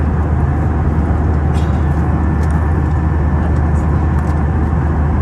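Steady low rumble and rushing noise of a vehicle interior in motion, level and unbroken.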